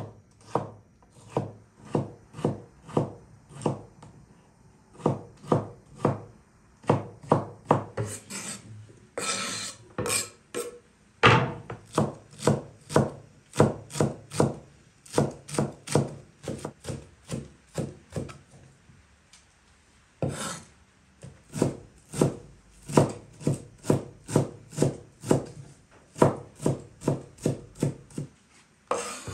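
Kitchen knife chopping green onions on a wooden cutting board, in steady strokes about two to three a second, with a short pause about two-thirds of the way through. A few longer scraping strokes come in between, and at the end the knife scrapes the chopped onions off the board.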